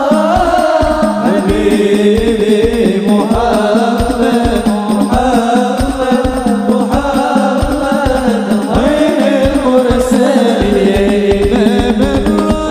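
Sholawat, an Islamic devotional song, sung by a lead voice into a microphone over hand drums beating a steady, quick rhythm, with a held low drone underneath.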